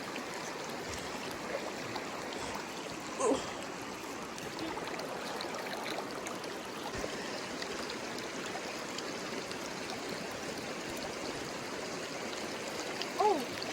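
River water running steadily over rocks.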